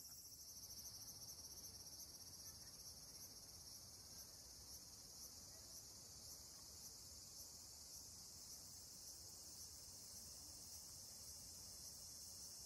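Insects trilling in a steady, high-pitched chorus with a faint regular pulse.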